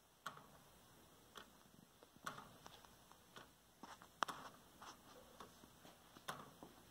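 Wooden gear clock (Clock Number Six design) ticking: its birch plywood escapement wheel and pallet give faint, sharp ticks about once a second, with softer clicks between and one louder tick just past halfway.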